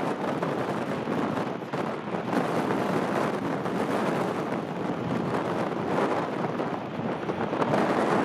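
Strong gusting wind buffeting the microphone: a rushing rumble that swells and dips every second or so.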